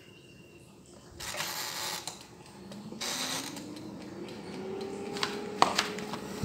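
Mobell air fryer's dial turned twice with a short ratcheting rasp each time, then its fan motor starting up, a hum that rises in pitch and settles into a steady whir as the appliance switches on to cook. A few sharp clicks come near the end.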